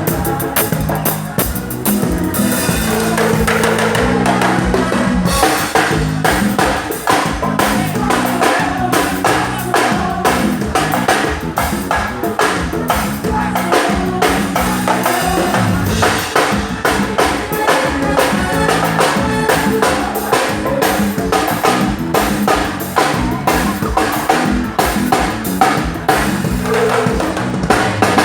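Live band playing at a sound check: a drum kit beating out a steady, fast rhythm of kick, snare and rimshots under pitched instruments, without a break.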